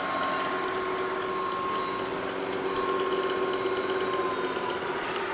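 Lagun vertical milling machine running at about 2500 RPM, a 1/4-inch end mill cutting a slot in plastic under power feed: a steady machine whine with two held tones over a hiss. The higher tone dips slightly about four seconds in.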